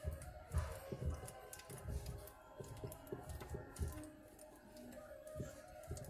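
Soft irregular clicks and knocks of fingers turning and working loose the plastic centre screw of a top-load washing machine's pulsator. Faint background music runs underneath.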